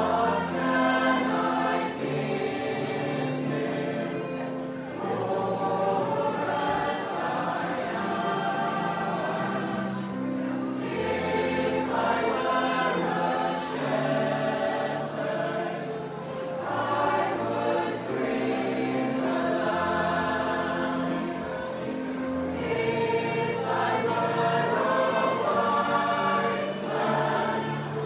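Mixed choir of men's and women's voices singing together in phrases, with short breaks for breath between them.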